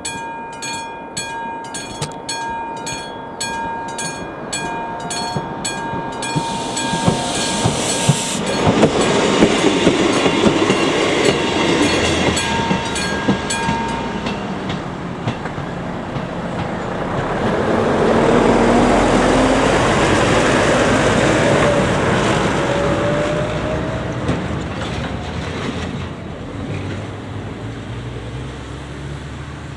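Level-crossing warning bell ringing with rapid regular strikes while a passenger train runs over the crossing, its wheels clattering over the rail joints. The bell stops about halfway through. A second loud pass of traffic follows, and near the end a road vehicle pulls away.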